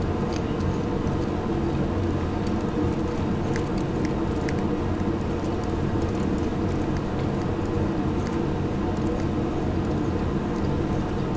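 Steady low hum, with faint light metallic ticks as the threaded pushrod of a manual brake master cylinder is turned by hand.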